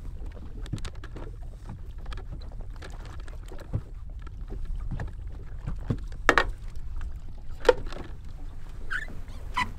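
Steady low rumble of wind and water around a bass boat, with scattered knocks and clicks as an underwater camera's cable is handled and fed over the side; the two loudest knocks come about six and eight seconds in.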